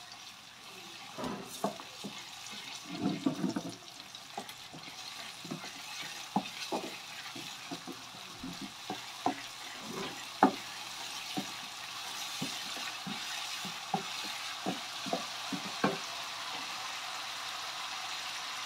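Blended shallot and garlic paste frying in hot oil in a nonstick wok, with a sizzle that builds steadily. A wooden spatula knocks and scrapes against the pan many times as the paste is stirred and sautéed until fragrant.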